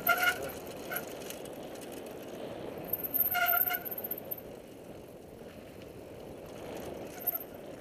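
Mountain bike rolling fast down a dirt singletrack through brush, a steady rush of tyre and wind noise on the helmet camera's microphone, with two brief squeals, one at the start and one about three seconds in.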